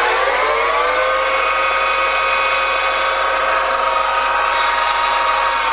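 Kwangchow C6246 lathe's geared headstock spinning up to its top speed of 1600 RPM: a whine of several tones rises in pitch for about the first second, then holds steady. This is the general gear noise that the seller calls normal for a lathe of this size.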